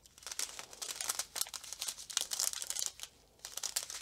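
Thin plastic packaging crinkling as small bags of diamond painting drills are handled, an irregular run of crackles with a short pause about three seconds in.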